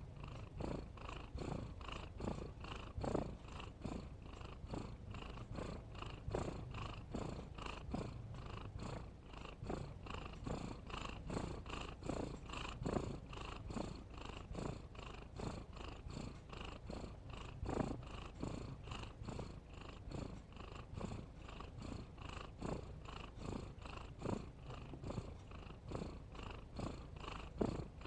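Domestic cat purring, in a steady rhythm of about two pulses a second.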